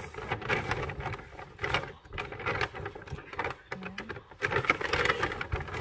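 Paper shopping bag rustling and crackling irregularly as hands rummage in it and pull clothes out.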